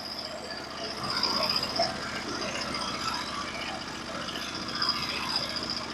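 Portable sawmill's engine running steadily, with a constant high whine above it.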